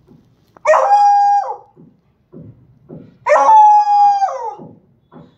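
Beagle howling twice, each howl about a second long, held on one pitch and then falling away at the end. It is an attention-seeking howl.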